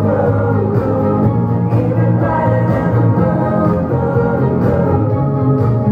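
Loud live pop music from a concert stage: sustained band chords over a steady bass, with sung vocals.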